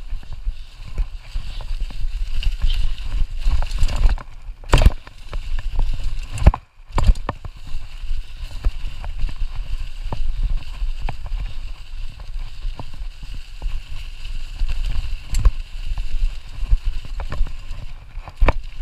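Mountain bike rolling fast over a trail thick with dry fallen leaves: tyres crackling through the leaves and the bike rattling and knocking over bumps, over a steady low rumble on the microphone. A hard jolt comes about five seconds in, followed by a brief dropout.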